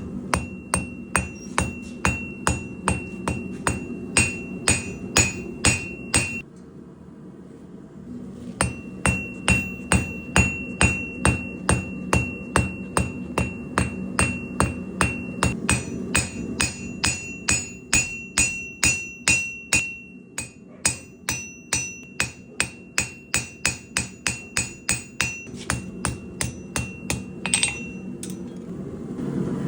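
Hand hammer forging Damascus steel on an anvil: steady, rhythmic blows, about two to three a second, each with a bright ring. The blows stop for about two seconds some six seconds in, then go on, over a steady low hum.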